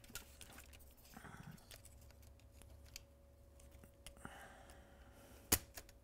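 Faint small clicks and handling noises from a MacBook logic board and parts being fitted back into the laptop's case, with one sharper, louder click about five and a half seconds in.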